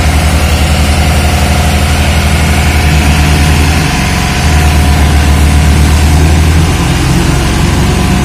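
Diesel engines of two New Holland 3630 tractors, chained back to back and pulling against each other in a tug-of-war, running loud with a strong, even low beat. The beat dips briefly about four seconds in and eases off a little near the end.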